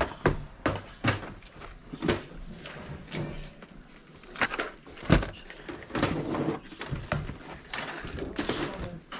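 Plastic tackle boxes knocking and clattering as they are handled and shifted, a run of irregular knocks and clicks with some rustling.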